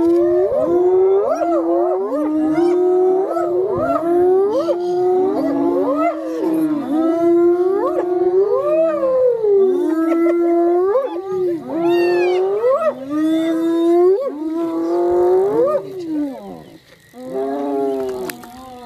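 Several animals howling at once: long, overlapping pitched calls that hold a steady note and then glide up and fall away, with a short lull near the end.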